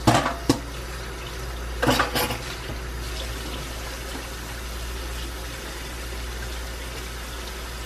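Steady rush of water running from a tap, with two brief handling noises in the first couple of seconds.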